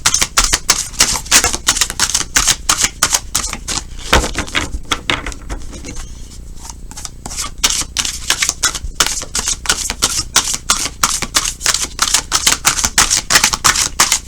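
Tarot cards being shuffled by hand: a fast, dense run of card clicks and flicks that thins out briefly about six seconds in.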